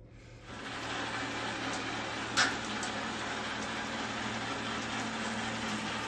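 Anker Eufy RoboVac 11s robot vacuum running, a steady whir of its suction fan and brushes over a low hum, coming up within the first half second, with one sharp click about two and a half seconds in.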